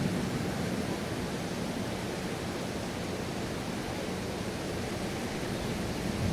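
Steady rain falling, an even hiss with no break, as a low thunder rumble dies away at the start.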